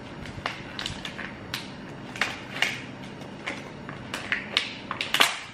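Thin clear plastic food packaging crackling and clicking as it is handled and opened: a string of irregular sharp crinkles, the loudest near the end.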